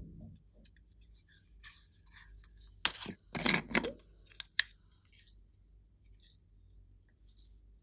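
Slime being squished and pressed by hand, making sticky clicks and crackles. The loudest cluster of pops comes about three to four and a half seconds in.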